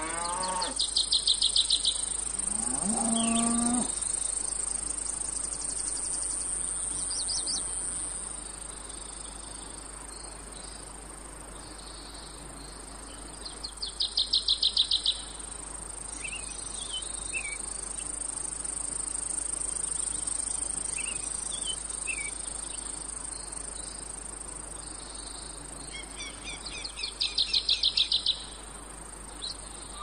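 Cicadas giving a steady high-pitched drone, with three bursts of rapid pulsed insect chirping about thirteen seconds apart. A cow moos near the start, and birds chirp briefly now and then.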